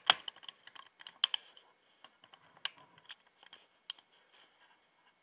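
Scattered light clicks and taps, the sharpest right at the start, over a faint high whine, from a camcorder being operated as it zooms in and refocuses.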